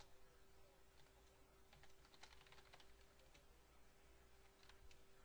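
Faint computer keyboard typing: scattered, irregular key clicks.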